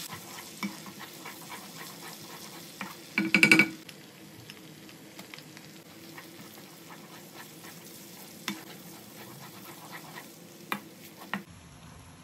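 Sliced onions with whole spices sizzling in oil in a nonstick wok while a wooden spoon stirs and scrapes through them, with small clicks throughout. About three seconds in there is a short, loud clatter of knocks with a brief ringing, and a few single sharp knocks later. Near the end the sizzle gives way to a quieter, softer bubbling.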